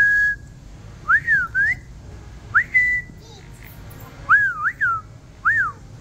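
A run of short, clear whistles, most of them quick rising-and-falling swoops, with a held note right at the start and a pair of swoops close together past the middle.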